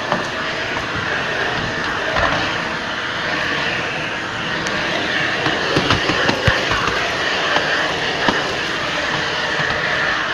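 Shark Rotator Professional Lift-Away vacuum cleaner running in lift-away canister mode with a steady whirring suction noise, broken by a few short knocks and clicks a little past the middle.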